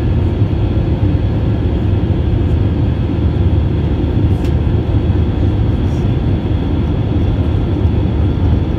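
Steady low rumble of an Airbus A320's jet engines and rushing airflow, heard from inside the passenger cabin during the climb after takeoff.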